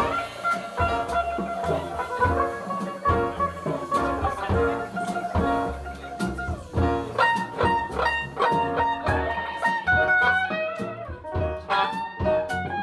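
Live blues band playing an instrumental break, a hollow-body electric guitar taking the lead with a run of single notes over double bass and drums.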